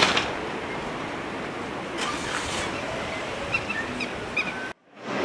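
Steady outdoor background noise with a few short, high chirps, opening with a sharp click and cutting off suddenly near the end.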